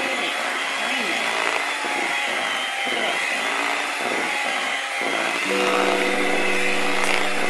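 Electric hand mixer running steadily, its beaters whirring through thick pound cake batter. About five and a half seconds in, music with sustained notes comes in over it.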